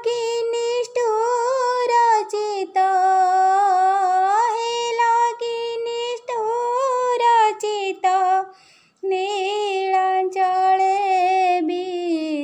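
A high solo voice singing an Odia Jagannath bhajan melody in long, wavering held notes, with a short break about eight and a half seconds in.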